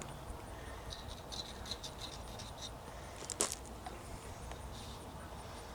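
Faint scraping and a run of small clicks as metal parts are handled, with one sharper click about three and a half seconds in.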